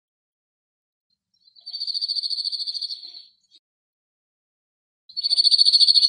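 Male cirl bunting singing: a fast trill of one note repeated on a steady pitch, lasting about a second and a half. A second trill starts near the end.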